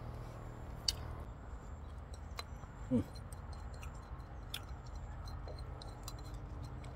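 Light, scattered clicks of a metal spoon against a glass bowl of chili dip, faint over a steady low hum.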